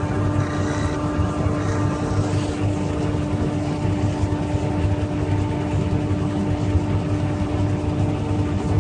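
Wood lathe running steadily: a constant motor hum with a rough rumble beneath it.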